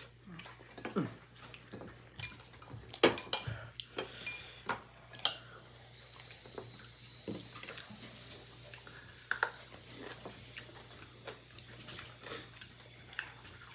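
Spoon and fork clinking and scraping against ceramic plates and bowls during a meal: scattered light knocks, the loudest about three seconds in.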